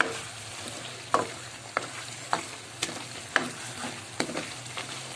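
Wooden spatula stirring fish heads in spiced masala in a non-stick wok, scraping and knocking against the pan roughly every half second over a steady sizzle of frying oil. This is the bhunai stage, frying the masala in its oil.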